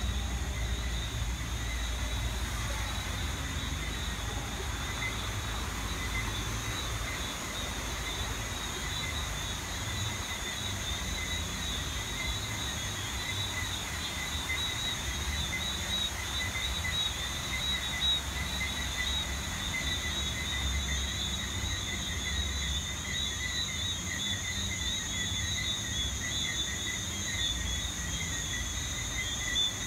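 Night chorus of crickets and other calling insects: a dense, steady chirring at several high pitches at once, over a low rumble.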